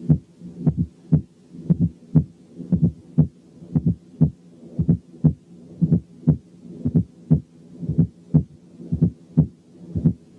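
Heart sounds recorded through the bell of a stethoscope at the cardiac apex: a regular run of low beats, about two a second, with a murmur between them.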